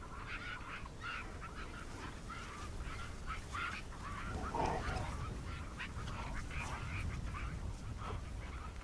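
Many short bird calls, coming irregularly over a low rumble, with one lower call about halfway through.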